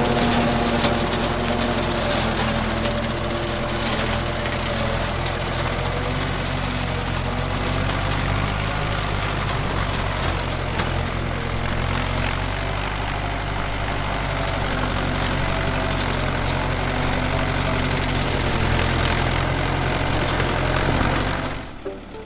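Farm tractor engine running steadily while pulling a brush hog rotary mower through grass. The sound drops away suddenly near the end.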